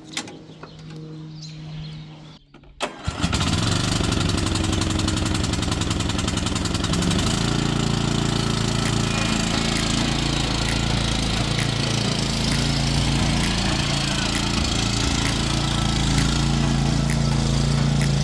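Riding lawn mower engine starting up about three seconds in, then running steadily, settling into an even note about seven seconds in.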